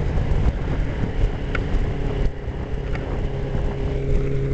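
Suzuki Katana 600's inline-four engine running steadily at freeway cruising speed, heard from a helmet-mounted camera, with heavy wind rush on the microphone.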